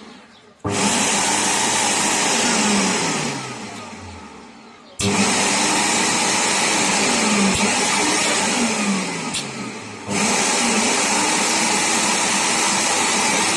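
National vacuum cleaner motor switched on and running with a loud rushing whine, then switched off and spinning down with a falling hum; it is switched on again about five seconds in, drops off briefly near ten seconds, and comes straight back up. The motor is being test-run after being cleaned of dust and oiled.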